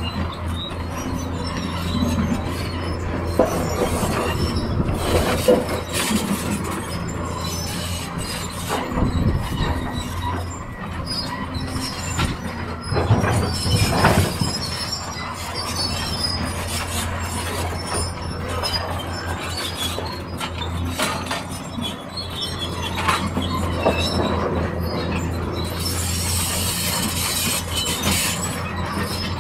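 Excavator and dump truck diesel engines running with a steady low hum, with several loud clanks and scrapes as rock is loaded into a truck bed.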